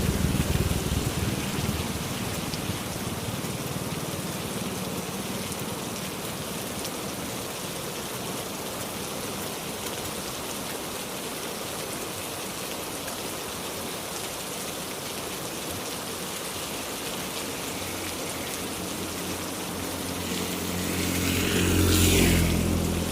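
Heavy rain falling steadily on surfaces, with the tail of a thunder rumble fading in the first second or two. Near the end a motor vehicle approaches and passes, its engine swelling and then easing off.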